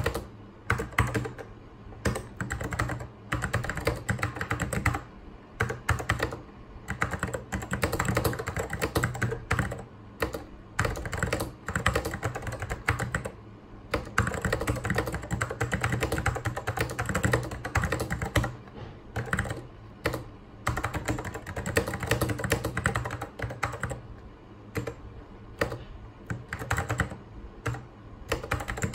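Typing on a mechanical Apple keyboard: keys clacking in quick, steady runs broken by brief pauses every second or two. A steady low hum sits underneath.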